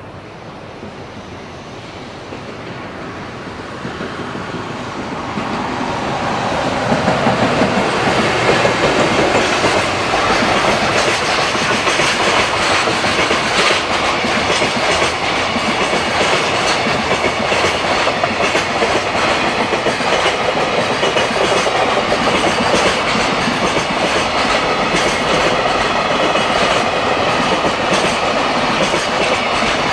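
JR Freight container train approaching and then rolling past close by: the sound builds over the first seven seconds into a steady rumble of the container flatcars, with a rapid clickety-clack of wheels over the rail joints.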